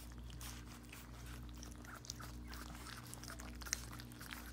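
Several weaning puppies lapping and slurping wet gruel from a stainless steel bowl: a run of small, irregular wet smacking clicks. A steady low hum runs underneath.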